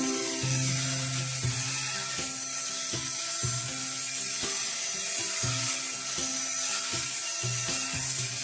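Electric hand mixer running, its beaters whisking cake batter in a stainless steel bowl.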